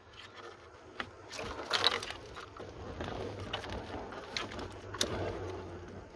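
Plastic clicks and rustling from hands prying a wiring connector's latch loose on an SUV fuse box, with sharp clicks about one second and about five seconds in.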